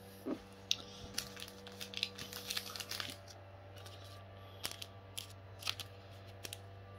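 Pokémon trading cards being handled and sorted: scattered light clicks and rustles, over a steady low electrical hum.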